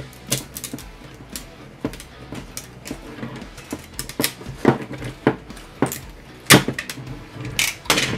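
Brittle ABS support material on a 3D-printed part being cut, pried and snapped off with a knife: irregular sharp clicks and cracks, the loudest about six and a half seconds in and again near the end.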